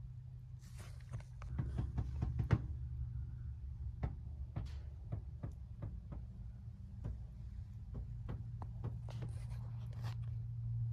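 Scattered light knocks and clicks, a few to several a second and busiest about a second in, over a steady low hum.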